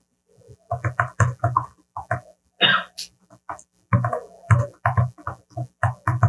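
A man's voice in short, indistinct mumbled bursts, like words spoken half under the breath.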